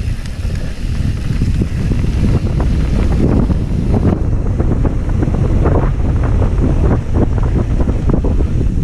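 Wind buffeting a camera microphone on a downhill mountain bike at speed, a loud steady low rumble, with tyres crunching over dirt and gravel and the bike rattling over bumps. The rattles and knocks come thicker from about three seconds in.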